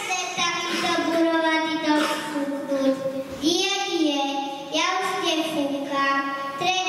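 A child singing solo with no accompaniment, in a high voice that holds long notes and slides between them.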